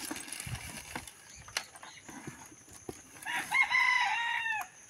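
A rooster crows once, about three seconds in: a single drawn-out call lasting about a second and a half that drops in pitch at the end. Before it come faint clicks and rustles of packaging being handled.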